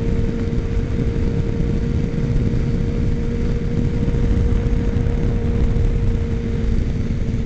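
Suzuki Katana 600 inline-four motorcycle cruising at freeway speed, heard through a helmet microphone: heavy wind rumble with a steady engine note that holds one pitch.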